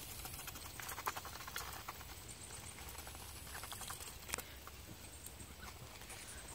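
Ducks pecking and dabbling at dry pellet feed in a plastic dish: a rapid, irregular clicking and rattling of bills in the feed, with a sharper click about four seconds in. Low wind rumble on the microphone underneath.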